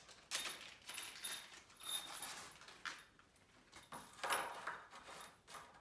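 A small plastic hardware bag rustling as it is opened and handled, with light metallic clinks of the bolts and nuts inside. A louder rustle comes about four seconds in.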